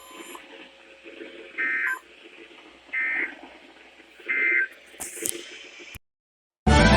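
Emergency Alert System end-of-message data bursts: three short, buzzy digital tones about a second and a half apart over a faint radio hiss, signalling the end of the alert. A brief crackle follows, then the sound cuts out and loud music starts near the end.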